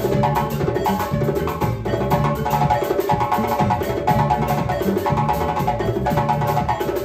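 Live band music with a steady groove: a wooden xylophone struck with mallets by two players, electric guitars, a drum kit and a hand drum.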